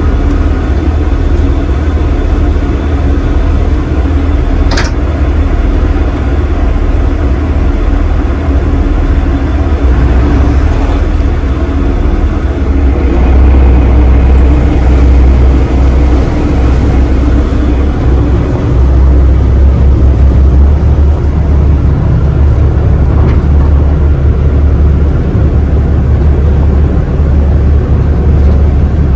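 Passenger ferry's engine running with a steady, loud low drone, heard aboard, with a single sharp click about five seconds in.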